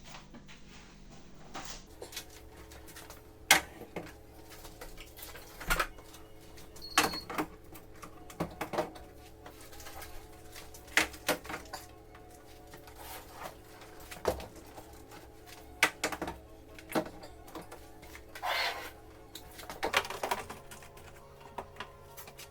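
Scattered light clicks and knocks of household items being handled, one every second or two, over a faint steady hum.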